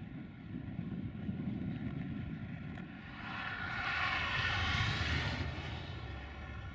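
Distant rumble of an intermodal freight train running away down the line, with a steady whine over it, swelling for a couple of seconds midway.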